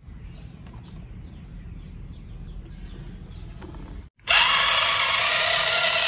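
Small electric motor of a toy RC truck, whirring loudly as it drives for about two seconds, starting about four seconds in and cutting off abruptly. Before it there is only a faint low background with a few small high chirps.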